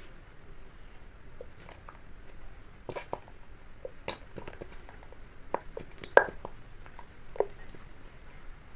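Slime being worked by hand, making irregular wet squelches and small sticky clicks, with the sharpest pop a little past six seconds.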